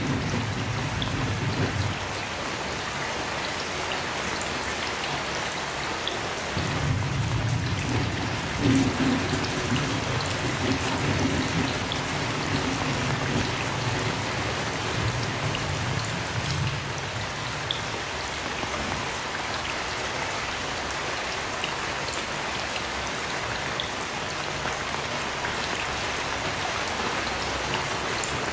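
Heavy rain falling steadily. A low rumble of distant thunder rolls at the start and again from about six seconds in, lasting around ten seconds.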